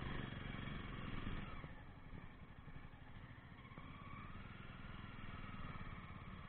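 Jawa 42 motorcycle engine running as the bike is ridden, a steady low firing note that drops a little in level about two seconds in and slowly builds again.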